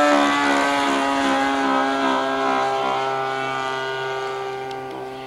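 Radio-controlled model Caudron C.366 Atalante in flight: a steady droning motor and propeller tone that sinks slightly in pitch and fades as the plane flies away.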